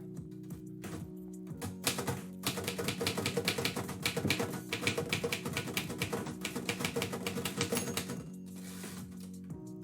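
Typewriter keys striking in a fast, dense run of typing, starting about two seconds in and stopping about a second and a half before the end. Background music plays steadily underneath.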